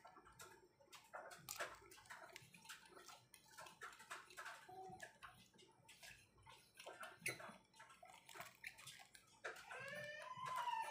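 Faint clicks, taps and rattles of small plastic and metal parts as a microphone is fitted into a phone-holder clip on a mini tripod. In the last second or so, a faint drawn-out call that bends in pitch.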